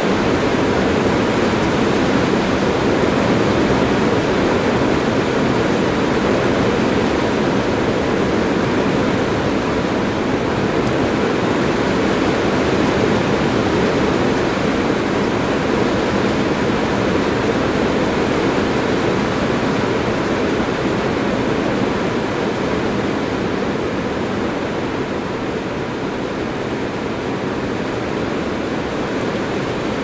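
Heavy rain on a metal roof, a dense, steady patter heard from beneath the roof. It eases slightly over the last several seconds.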